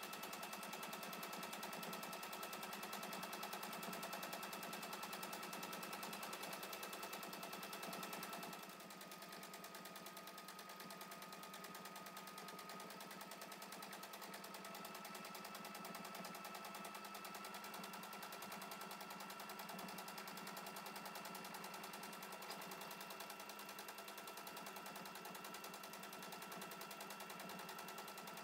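Domestic sewing machine running steadily for free-motion stitching, the needle going up and down in a fast, even rhythm through layers of organza and fabric, with a steady motor whine. The sound drops slightly in level about eight seconds in.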